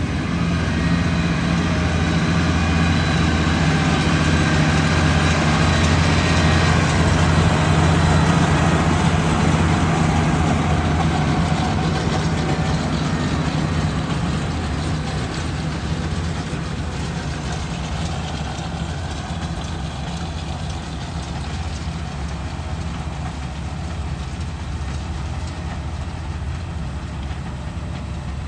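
Tractor engine running steadily, swelling over the first several seconds and then slowly easing off.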